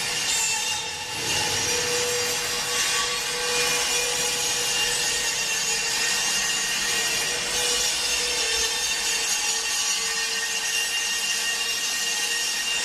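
Planetary mixer running steadily: a continuous machine whine with several steady tones over an even hiss.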